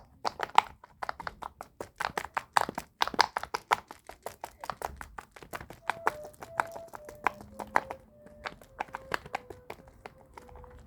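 Many quick clicks and taps of small plastic toys being handled, dense at first and thinning out in the second half. From about six seconds in, faint steady tones step down in pitch one after another.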